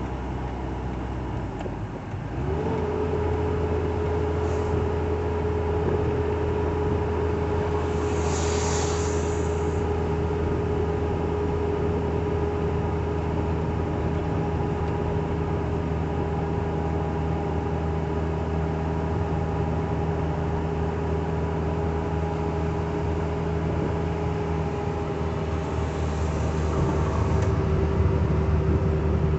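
Motorhome on the road, a steady drone of engine and road noise. About two seconds in, the engine note steps up and settles into a steady hum. Brief hissing rushes come at about nine seconds and again near the end.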